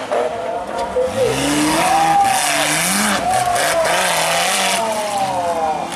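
An off-road 4x4's engine revving up and down, rising and falling in pitch several times, over a rushing noise.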